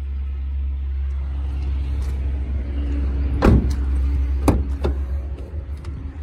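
A small car's door being handled: two sharp clunks about a second apart, then a lighter click, over a steady low rumble.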